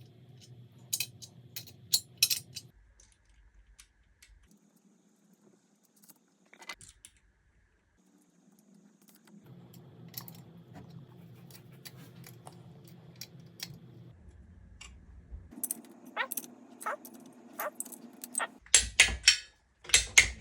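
Small metal parts and tools clinking and tapping against each other, a scatter of sharp light clicks that grows into a quick run of louder ones near the end.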